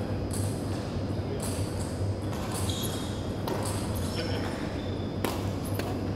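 A badminton rally: a shuttlecock struck by rackets several times, about a second apart, with sneakers squeaking briefly on the wooden court floor, over the steady hum of a large sports hall.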